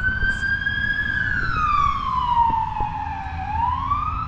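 Police car siren wailing in a slow rise and fall: the pitch peaks about a second in, slides down for a couple of seconds, then climbs again near the end. A low rumble of road traffic runs under it.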